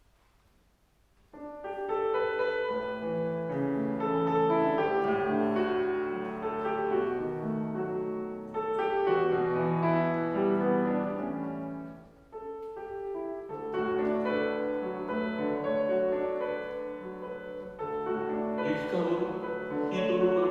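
Solo piano playing the opening of a song. It starts after about a second of near silence and eases off briefly about halfway through.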